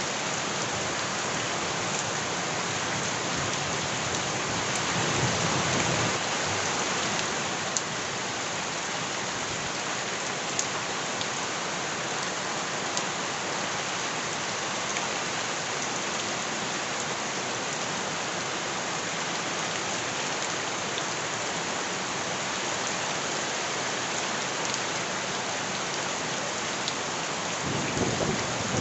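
Steady heavy rain falling, with a few sharper drip ticks. A low rumble swells up about four to six seconds in and again near the end.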